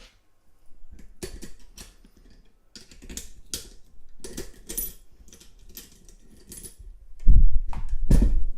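Metal clicks and clinks from handling the opened Yale four-lever padlock and its pick wires, a run of irregular sharp ticks. Near the end come a few heavier knocks, the loudest sounds.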